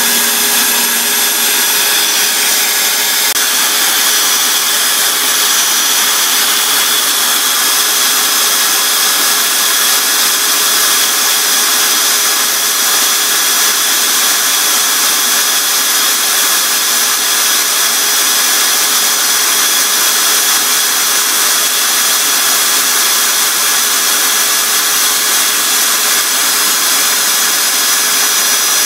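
Electric drill running steadily, spinning a cork bobber blank held against a file and then a strip of coarse sandpaper: a steady motor whine under the rasping hiss of abrasive on cork.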